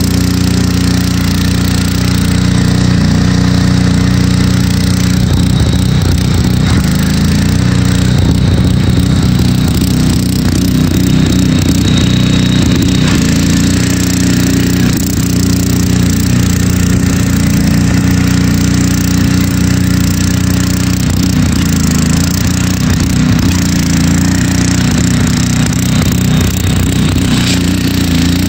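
Engine of a six-wheeled Craftsman garden tractor running steadily under load as it climbs a snowy slope, with a continuous crackling rattle over it.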